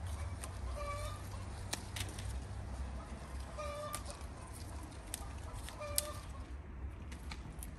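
A chicken clucking in short calls every two to three seconds, over sharp snaps of persimmon stems breaking as the fruit is picked by hand, one louder snap near the end.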